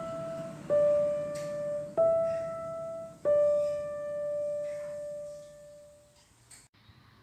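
Background piano music: a slow line of single struck notes about a second and a half apart, the last note fading away in the second half, leaving near quiet.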